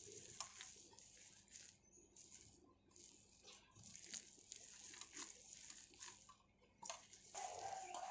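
A hand squeezing and mixing a mass of grated beetroot and cabbage with flour in a steel bowl: faint, irregular wet squishing and rustling.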